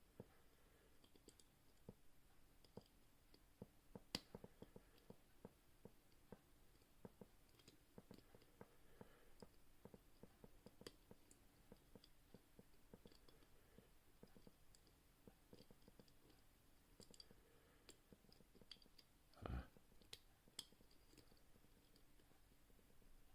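Faint, irregular clicks and scrapes of homemade picking tools working the levers of a six-lever British oval lever padlock, with one short, duller knock about nineteen seconds in.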